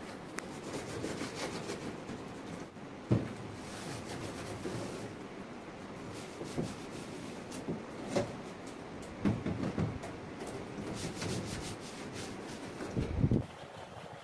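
Cloth rubbing and wiping over the white plastic casing of a Daikin split air conditioner's indoor unit, a steady rustling scrub with a few knocks against the plastic, the loudest about three seconds in and near the end.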